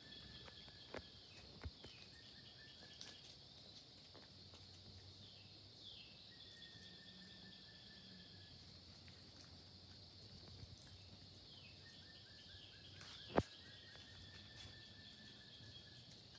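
Faint night chorus of insects: a steady high drone with short pulsed trills repeating every few seconds, each about two seconds long and falling slightly in pitch. A few soft clicks, and one sharp tap about 13 seconds in.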